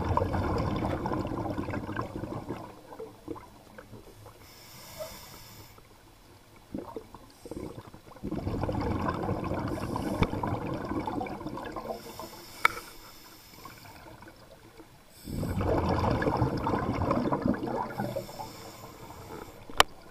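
Scuba diver breathing through a regulator underwater: three long gushes of exhaled bubbles, each about three seconds, with a short high hiss of inhaling between them. A sharp click comes near the end.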